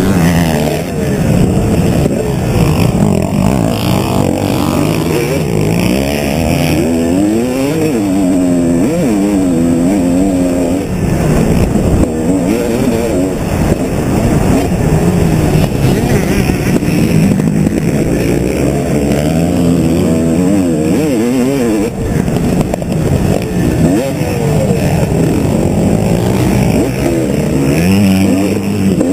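Motocross bike engine under race load, heard from the bike itself. Its pitch climbs and drops again and again as the rider accelerates and backs off around the track.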